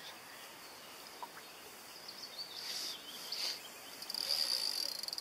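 Fishing reel's drag buzzing as a hooked pike pulls line against a bent rod, high-pitched, in short spurts a little past halfway and then a longer run near the end.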